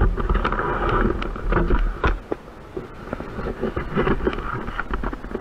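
Wind buffeting the microphone with motorcycle noise while riding, then a quieter stretch of scattered clicks and rustling.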